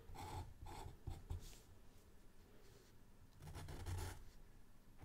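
Black fine-point Sharpie marker scratching on sketchbook paper in short back-and-forth strokes as it fills in a solid black area. There is a quick run of strokes in the first second and a half, then a louder patch of strokes around three and a half to four seconds.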